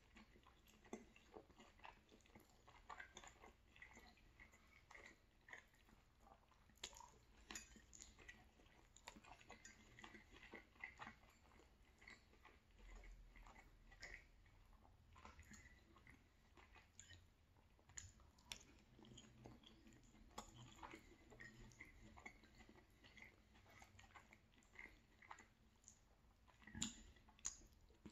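Quiet close-up chewing of saucy rigatoni pasta and sausage, with short sharp clicks and taps scattered throughout.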